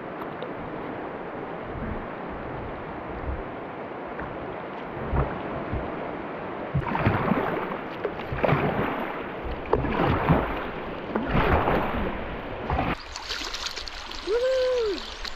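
River water rushing around a kayak, with wind on the microphone, and about four rhythmic paddle-stroke splashes roughly a second and a half apart in the middle. Near the end the water turns quieter and a single short rising-and-falling tone is heard.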